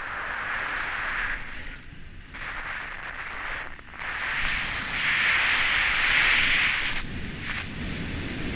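Snowboard sliding fast over packed snow, its edge scraping in several long swells as the rider turns, with a low wind rumble on the microphone.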